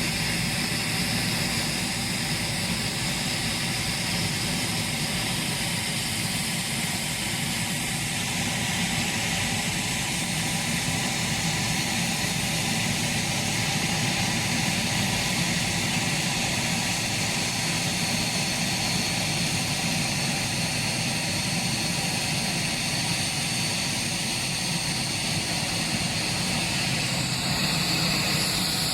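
Boeing 737 jet engines running with a steady, even noise and a high whine, holding level throughout.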